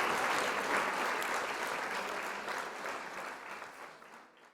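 Applause, many hands clapping, slowly dying down and fading out over the last second or so.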